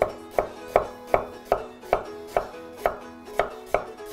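Santoku knife chopping turnip into thin strips on a wooden cutting board: an even run of sharp strikes, a little under three a second.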